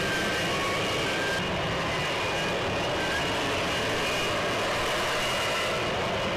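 F-35B jet hovering in vertical-landing mode, its engine and lift fan running: a steady, loud noise with thin high whining tones that come and go.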